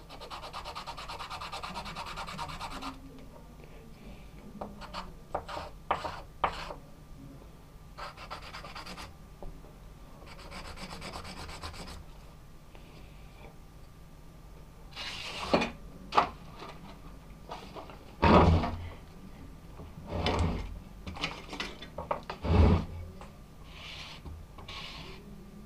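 Wood being hand-sanded on sandpaper: bouts of rapid scratchy rubbing strokes. In the second half, several loud knocks.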